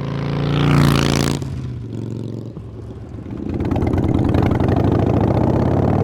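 Harley-Davidson Iron 883's air-cooled V-twin exhaust note: one quick rev that falls back after about a second and a half, a lower stretch, then the engine climbs again about three and a half seconds in and holds at a raised speed.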